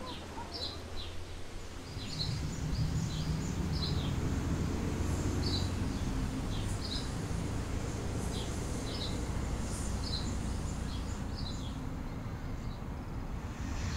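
Small birds chirping in short, repeated calls over a steady low rumble that comes up about two seconds in.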